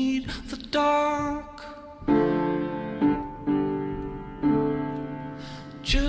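Background music led by piano: chords struck every second or so, each ringing on and fading.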